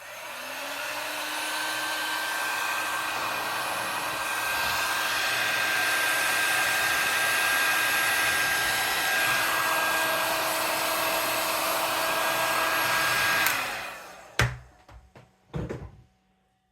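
Electric heat gun switched on, its motor spinning up to a steady rush of hot air with a faint whine, shrinking heat-shrink tubing. It switches off about thirteen seconds in, followed by two knocks.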